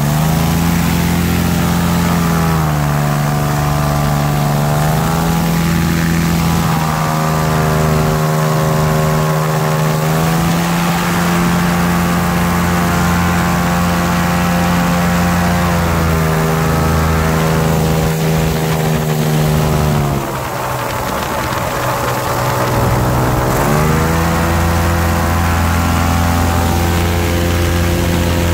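Airboat's 30 hp Loncin engine and propeller running under way, revs rising and falling with the throttle in several surges. The revs drop toward idle for a few seconds about two-thirds in, then open up again and fall off at the very end.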